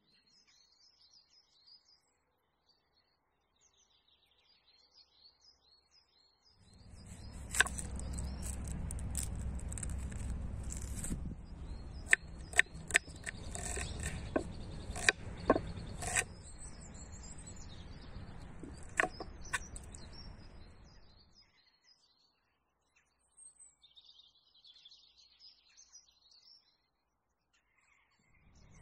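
Small birds chirping faintly. In the middle stretch, a knife chops an onion on a wooden cutting board: a dozen or so sharp knocks of the blade on the board, over a low rumble.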